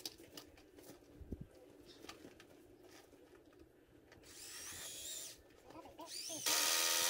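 A power drill whirring into PVC pipe. It starts about four seconds in, briefly, with its pitch wavering as the trigger is worked, then runs steadily and louder from about six and a half seconds on. Light clicks and knocks of handling the pipe come before it.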